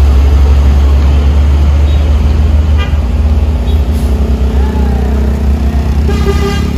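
Heavy truck diesel engine working hard as it climbs a steep hairpin, a loud steady low rumble. A horn toots briefly near the end.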